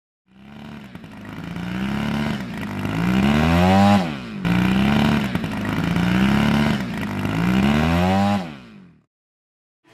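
An engine revving in two near-identical passes of about four seconds each, its pitch wavering and climbing toward the end of each pass before fading out.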